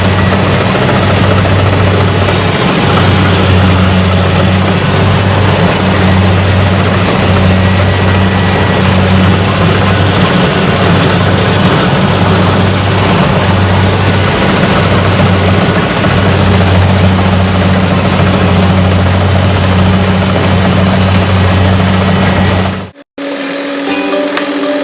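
Rice combine harvester running loudly and steadily at work, a constant low engine drone under a wash of machine noise. It cuts off suddenly near the end, giving way to music.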